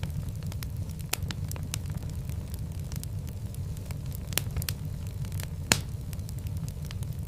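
Fireplace fire crackling: a steady low rumble of burning with irregular small pops and snaps, and one louder pop about three-quarters of the way through.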